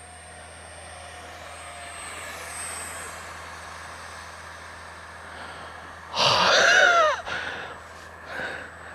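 Electric ducted fan of a small RC jet whining faintly and steadily, then a loud rush about six seconds in as it passes close, its pitch falling as it goes by.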